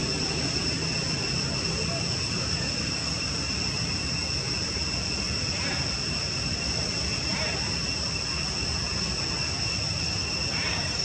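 Steady chorus of insects: a continuous high-pitched drone at two even pitches, with a faint low background rumble beneath.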